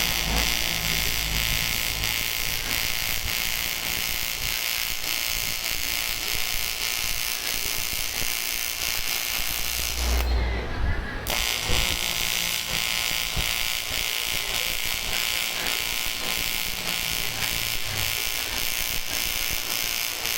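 Aluminium TIG welding arc buzzing and hissing steadily. It breaks off for about a second in the middle, then strikes again.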